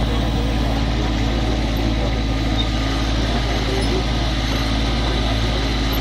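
Kubota B2420 compact tractor's three-cylinder diesel engine running steadily, powering the hydraulics as the backhoe digs.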